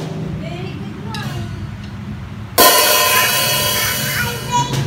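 A Meinl cymbal on a drum kit struck once with a drumstick about two and a half seconds in, ringing out loudly and fading slowly over about two seconds. Before the hit there are only faint background voices.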